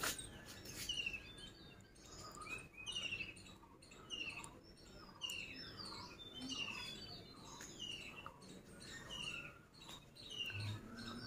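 Birds chirping: a steady string of short, repeated high notes that drop in pitch, with softer, lower calls between them.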